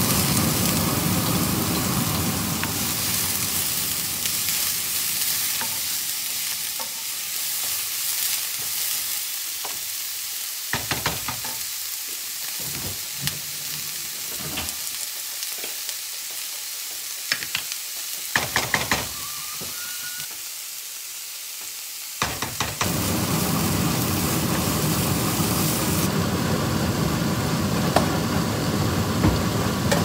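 Vegetables sizzling in a hot nonstick wok as they are stir-fried with a wooden spoon. The sizzle dies down in the middle, leaving a few sharp knocks of the spoon against the pan, then returns loud for the last several seconds.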